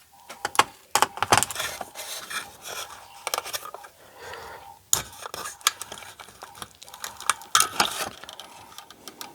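Irregular clicks, taps and scrapes of small plastic and metal parts being handled and prodded while a blood pressure monitor's power socket is opened up.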